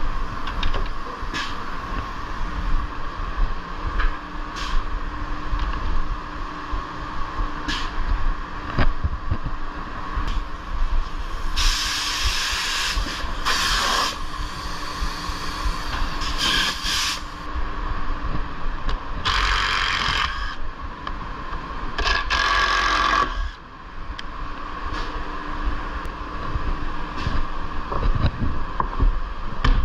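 Steady machine hum in a CNC workshop, broken by several loud, short hisses of compressed air, four of them, each lasting one to two seconds, in the middle part. There are also scattered clicks and knocks as pods and pneumatic clamps are set on the table of a Holzher Pro-Master 7125 5-axis CNC machine.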